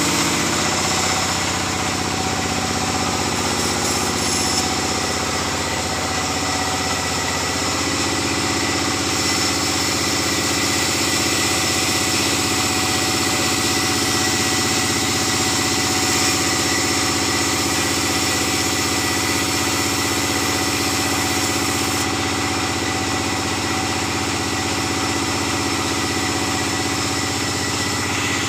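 Sawmill band saw and the stationary engine that drives it, running steadily with an even mechanical drone.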